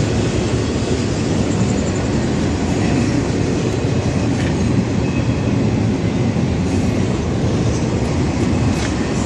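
A train passing, a steady rumble of rail cars on the track.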